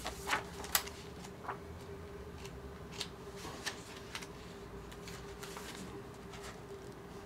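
Pages of a book being turned and handled: quiet paper rustles and soft clicks, several in the first second and a few more scattered through the rest, over a faint steady hum.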